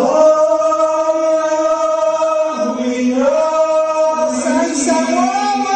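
Chanted singing in long held notes. One note is held steady, the pitch steps down about halfway through, and it slides upward near the end.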